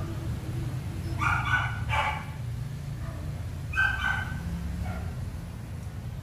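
A dog yipping a few short times, over a steady low rumble.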